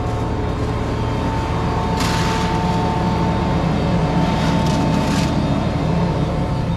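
Tractor engine running steadily, with a steady high-pitched whine over it. A rustling hiss comes in about two seconds in and lasts about three seconds.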